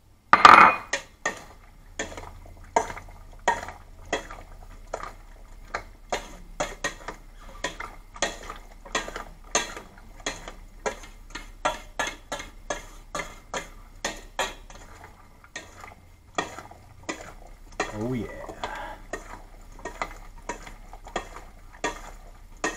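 A spoon stirring chopped vegetables in a metal mixing bowl, clinking against the bowl again and again, about twice a second. The loudest clatter comes about half a second in.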